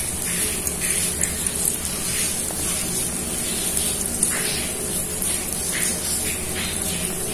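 An egg omelette with sausage slices and scallions sizzling in a frying pan: a steady hiss with small crackles popping irregularly throughout.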